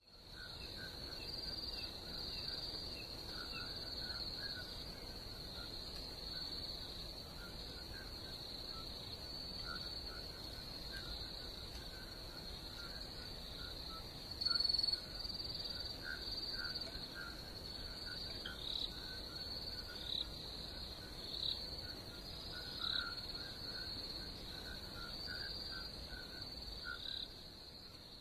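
Night insects, crickets, trilling steadily in a high continuous band, with a lower chirping that comes and goes throughout and one louder chirp about halfway through.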